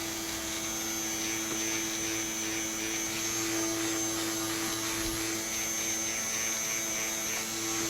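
Small electric fan running steadily with an even whirring hum.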